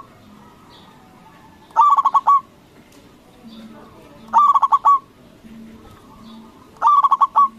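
Zebra dove (local Javanese perkutut) singing: three phrases of rapid staccato cooing notes, one about every two and a half seconds, each lasting about half a second.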